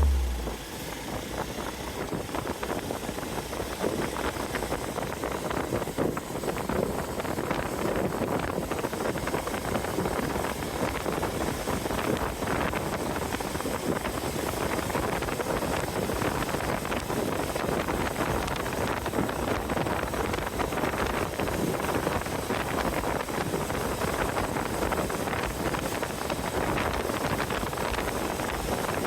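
Hero XPulse 200 Pro single-cylinder motorcycle being ridden on a dirt trail, engine running steadily under wind noise on the microphone.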